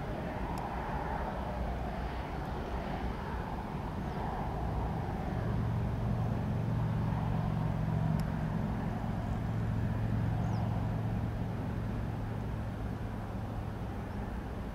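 Boeing 787-9 jet engines running at low power as the airliner taxis: a steady distant rumble with a low hum that grows louder about five seconds in and eases near the end.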